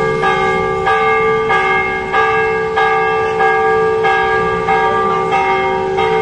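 Church bells ringing in a steady peal, about ten strokes roughly two-thirds of a second apart, each one ringing on into the next.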